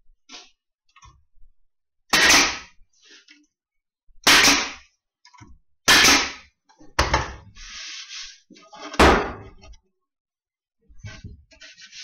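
A nail gun firing five single loud shots, one to two seconds apart, driving fasteners into a wooden hive panel, with a short hiss after the fourth shot and some handling knocks between them.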